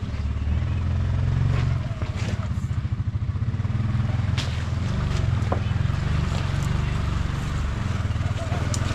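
Can-Am Defender side-by-side's engine running at low speed as the machine crawls over rock, the throttle rising and easing. A few short sharp clicks sound over it.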